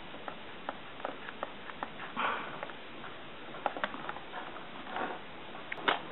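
Light, irregular clicks and taps from a hot glue gun and the corrugated plastic (Corex) hull being worked along its seams, with two short rushing, breathy noises about two and five seconds in.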